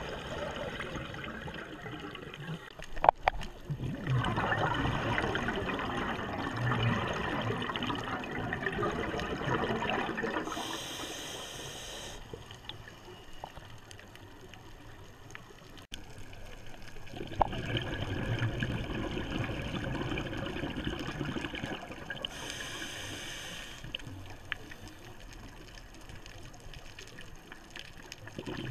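Scuba diver breathing through a regulator underwater: two long bursts of exhaled bubbles, each followed by a short hissing inhale. A sharp click about three seconds in.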